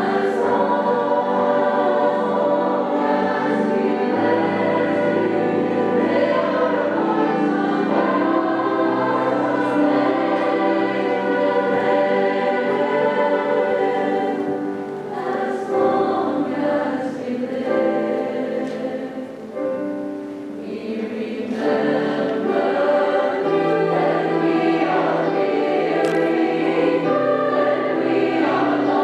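School choir singing in several parts at once, with low held notes under the upper voices. It grows quieter for a few seconds about halfway through, then swells back up.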